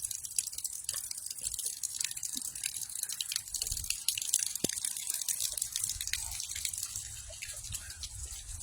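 Steady rain falling, a dense patter of many small drips and drops.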